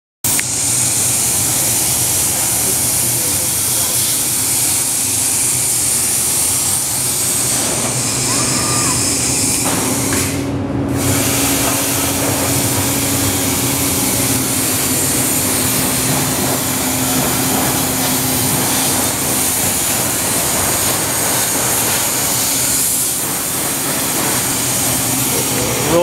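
ESAB Pathfinder CNC plasma cutter cutting sheet metal: the plasma arc and its air make a steady, loud hiss. The high hiss drops out for a moment about ten seconds in.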